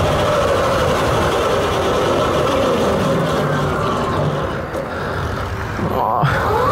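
Electric go-kart's Surron Storm Bee motor whining over a rush of wind and road noise, the whine falling in pitch as the kart slows from highway speed to walking pace. Near the end the whine rises again as the kart accelerates away.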